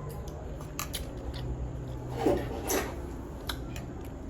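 Light clicks and clinks of dishes and cutlery during a meal, with two short louder sounds a little over two seconds in, over a low steady hum.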